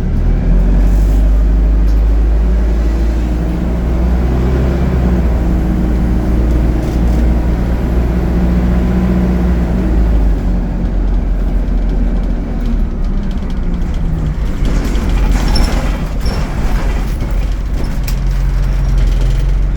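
ADL Enviro 200 bus's diesel engine and Allison automatic gearbox running under way, the engine note climbing and then dropping away past the middle as the bus eases off. A brief rattle and hiss follow, then the engine settles to a steady lower note near the end.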